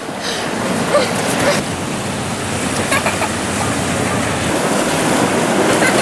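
Sea surf breaking and washing over rocks and sand at the shoreline: a steady rushing noise that slowly swells louder.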